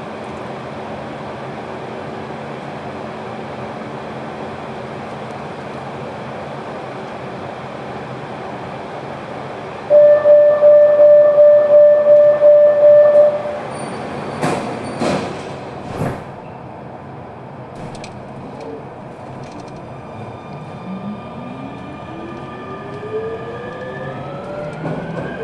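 Barcelona Metro Line 10 train: a steady hum, then a loud warning tone for about three and a half seconds. A few sharp knocks follow, and then the traction motors' whine rises steadily in pitch as the train pulls away.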